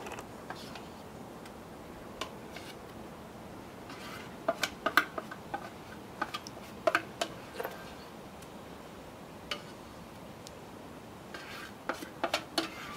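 A utensil scraping and knocking against the inside of a stainless steel mixing bowl, in short clusters of sharp clicks a few seconds apart, as a thick fudge-like raw chocolate mixture is scraped out into a glass baking dish.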